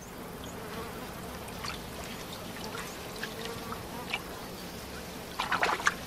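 Swamp ambience: a steady hum of insects buzzing, with water trickling, and a brief louder burst of sound near the end.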